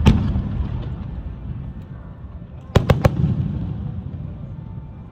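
Aerial firework shells bursting. One sharp bang comes at the start, then three quick bangs about three seconds in, each trailing off into a low rolling rumble.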